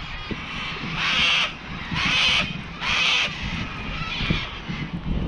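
A bird giving three harsh, caw-like calls about a second apart, over low wind rumble on the microphone.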